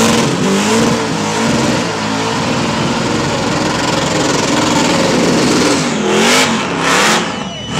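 Supercharged drag car's engine held at high revs through a burnout, its spinning rear tyres adding a dense, even roar. The revs waver at first, then about six seconds in it is blipped up and down in quick revs, easing off briefly near the end.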